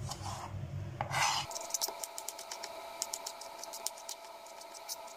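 Light scraping and scattered small sharp clicks of things being handled in a kitchen, over a faint steady hum; a lower hum cuts off about a second and a half in.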